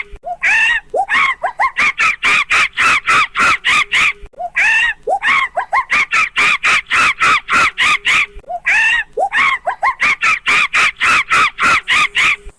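An animal calling in a fast, loud series of repeated cries, about four a second. The series starts over three times, each time opening with a few short rising notes before the rapid calls.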